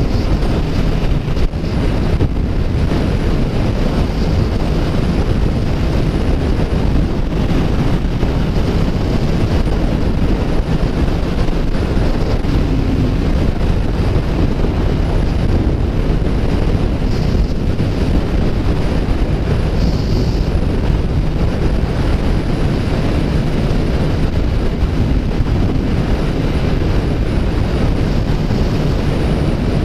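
Steady wind noise on the microphone together with a Kawasaki Ninja 1000's inline-four engine running at a constant highway cruise.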